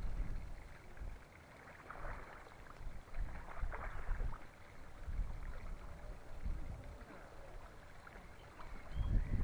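Wind buffeting the microphone in uneven gusts, loudest at the start and again near the end, over a faint background hiss.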